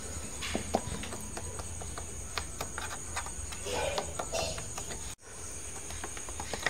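Metal spoon pressing and patting soft carrot burfi flat in a tray, with scattered light clicks and taps of the spoon against the tray over a steady faint high hiss. The sound cuts out abruptly for a moment about five seconds in.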